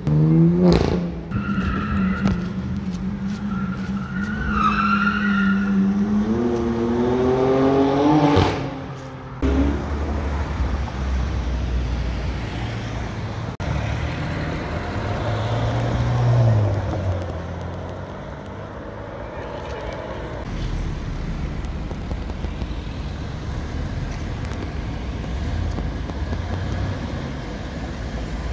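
A car accelerating hard, its engine revving up steadily for about eight seconds while its tires squeal, then cutting off abruptly. After that, sports car engines run at low speed and pull away in street traffic, with one brief surge of revs.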